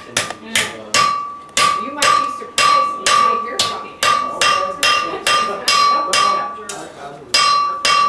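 Hand hammer forging hot iron on a steel anvil: steady blows about two a second, each sharp strike followed by a clear bell-like ring from the anvil, with a short pause shortly before the end.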